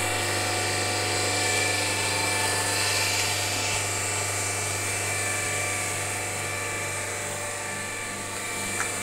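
Steady drone of a running motor: a low hum under several held higher tones, with a regular pulsing underneath, and a small tick near the end.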